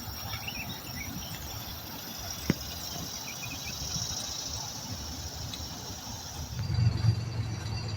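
Marsh ambience: a steady faint high hiss with a few faint bird chirps, and a single sharp click about two and a half seconds in. Near the end the hiss gives way to a low steady engine hum.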